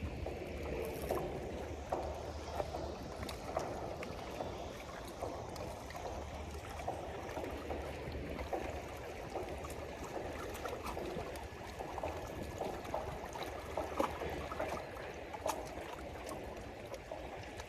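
Small sea waves lapping and gurgling against rocks, a steady wash broken by many small splashes and clicks.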